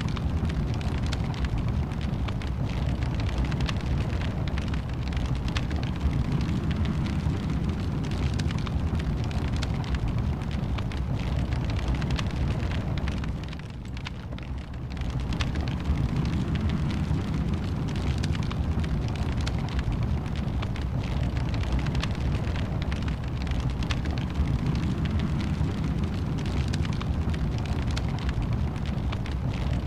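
Wood fire burning in a fireplace: a steady low rumble with dense crackling and popping. It dips briefly quieter about halfway through, then resumes.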